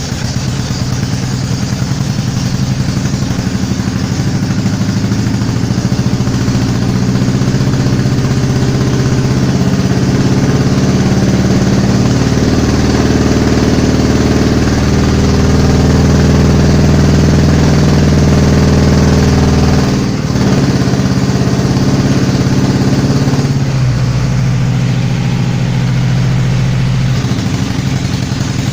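Honda F20C 2.0-litre inline-four running just after its first start in a kit car, idling with the engine speed stepping up and down a few times; loudest about halfway through, with a brief dip about two-thirds of the way in.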